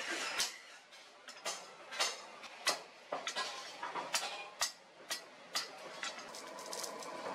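Hand hammer striking a steel machete blade on a post anvil: a run of sharp metallic blows, roughly two a second and unevenly spaced, each with a short ring.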